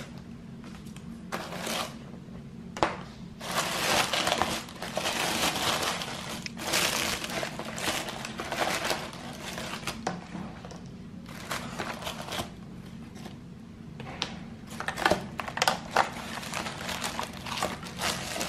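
Tissue paper crinkling and rustling in irregular bursts as hands rummage through a box of cosmetics, with a few sharp clicks of packaging knocking together.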